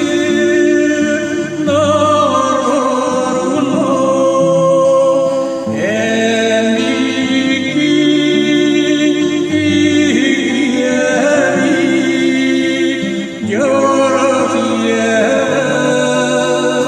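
A man singing a song in Sakha (Yakut) with vibrato over instrumental accompaniment, with a bass line that steps from note to note every second or two.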